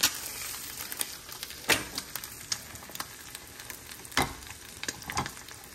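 An egg sizzling in butter in an uncoated stainless steel frying pan, a steady frying hiss broken by a few sharp clicks and knocks, the loudest about four seconds in.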